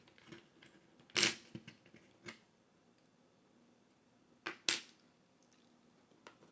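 Small metal clicks and clacks of tools working at the retaining clip on a deadbolt lock cylinder, with two sharper clacks, about a second in and near five seconds in.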